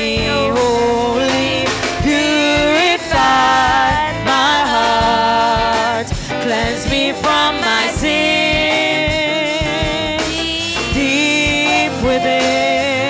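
Live gospel worship singing by several women's voices over drums and band accompaniment, with long held notes that waver in pitch.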